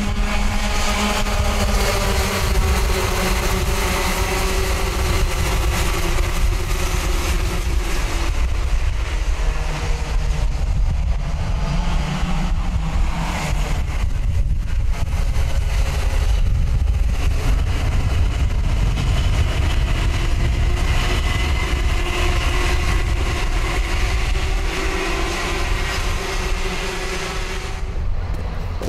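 A pack of IAME Cadet karts' 60cc two-stroke engines racing together, accelerating away from the start, a buzzing whine of many overlapping engine notes that rises and falls as the karts pass and draw away, over a constant low rumble.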